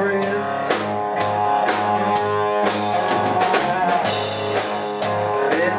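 Rock band playing an instrumental passage: guitar and bass over a drum kit keeping a steady beat of about two strokes a second, without vocals.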